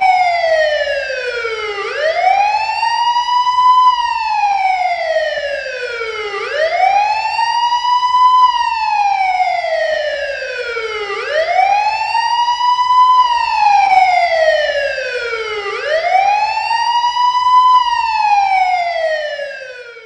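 Police siren on its wail, its tone rising over about two seconds and then falling slowly, repeating about every four and a half seconds. It cuts off suddenly near the end.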